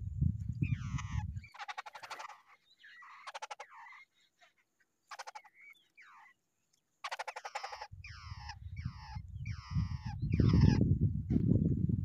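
Babblers calling: harsh, falling, chattering calls in quick series, coming several a second near the end, with two short rasping rattles earlier and a quiet lull in the middle. A low rumble underlies the first second and the last few seconds.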